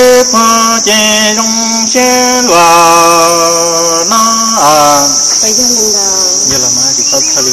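A man singing Hmong kwv txhiaj sung poetry in long held, wavering notes, with downward slides near the end. Under it runs a steady high-pitched insect drone.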